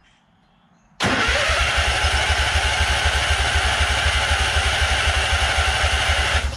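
A riding lawn tractor's engine is cranked by its electric starter, starting about a second in, with a fast, even chug of about ten beats a second, and it does not catch before cutting off after about five seconds. It fails to fire because the engine has sat for over a year and its fuel pump has not yet filled the carburetor.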